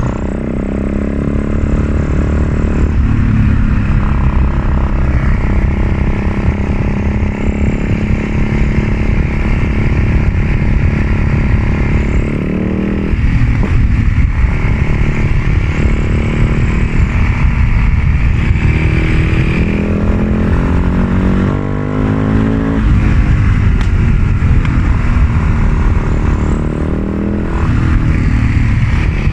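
The single-cylinder four-stroke engine of a 2004 Husaberg FS 650 motorcycle running under load. The revs climb steadily for a few seconds, then drop sharply, over and over.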